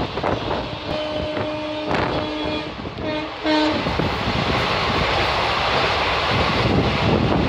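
Train locomotive horn: one long blast about a second in, then two short blasts around the middle. Under it the moving train rumbles, with a few wheel clacks over rail joints early on, and steady wind and running noise follow.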